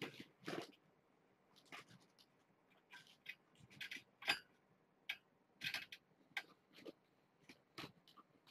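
Faint, uneven scratches and rustles of kittens' claws and paws on carpeted cat towers and the floor covering: about fifteen short scrapes, irregularly spaced.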